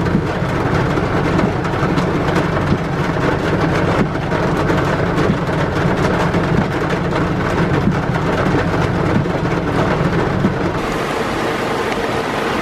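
Torrential thunderstorm rain pouring down, a loud, dense, steady patter of drops over a low rumble. Near the end the rumble fades and the rain hiss turns a little brighter.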